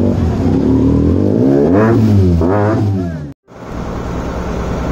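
Motorcycle engines idling in a crowd of bikes, one revved up and back down twice. After an abrupt cut, a boat engine runs with a steady low throb.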